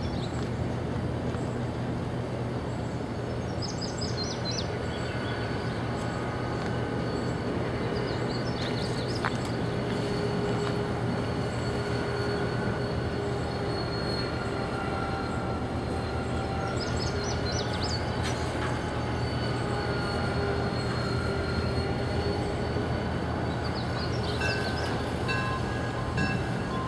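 Diesel locomotive's engine running steadily as it moves a cut of covered hopper cars slowly through a rail yard. The car wheels squeal on the rails in high, wavering tones that come and go.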